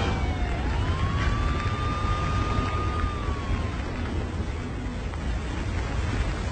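Storm noise, a heavy low rumble like strong wind on the microphone, with a siren wailing through it. The siren's pitch rises about half a second in, holds, and falls away a little before the middle.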